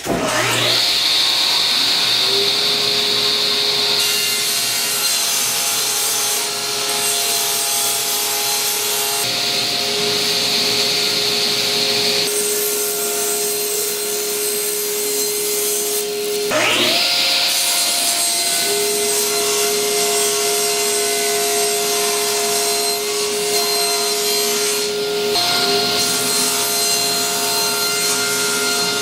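Electric power saw spinning up, running and cutting Baltic birch plywood into small pieces, with stretches of cutting hiss that come and go. The motor starts up again about two-thirds of the way through.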